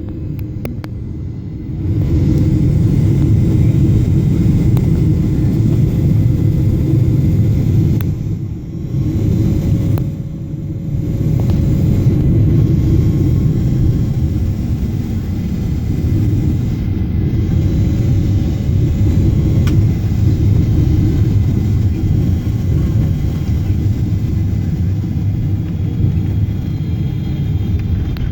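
Low, steady rumble heard inside the passenger cabin of a Boeing 777-300ER during landing. It grows louder about two seconds in and dips briefly twice in the middle.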